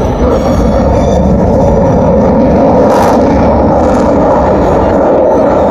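Jet engine noise from an F-35A fighter's single turbofan engine flying overhead, loud and steady.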